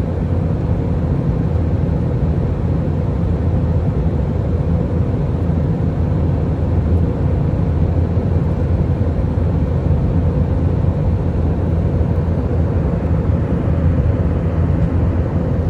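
Steady cabin noise of an Airbus A319 airliner in flight: a deep engine and airflow rumble with a constant low hum that the recordist could not identify.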